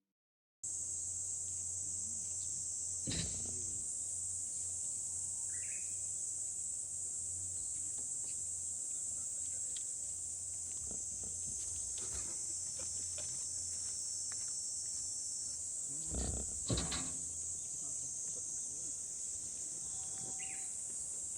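Steady high-pitched chorus of insects, with a few short knocks about three seconds in and twice around sixteen seconds in.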